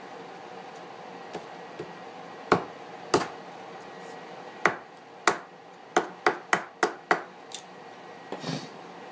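Hatchet chopping small pieces of wood: about ten sharp strikes, two spaced blows early on and then a quicker run of chops in the second half.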